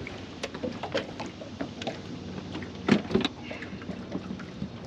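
Scattered knocks and clicks of handling in a fishing boat, loudest in a quick pair about three seconds in, over a faint steady hum.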